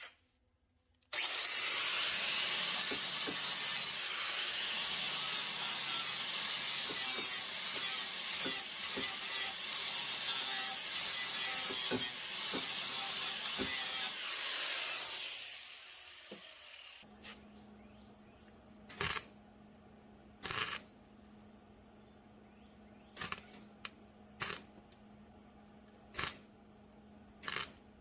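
Handheld power grinder working on the cracked metal door-handle mount, cleaning it up ahead of tack welding. It runs in long, uneven passes, then winds down about fifteen seconds in, leaving a low steady hum and a few scattered sharp clicks.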